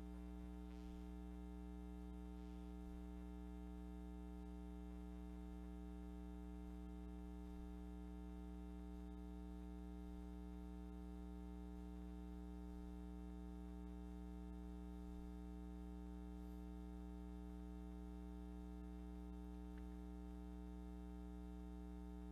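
Faint, steady electrical mains hum with a ladder of overtones and nothing else over it.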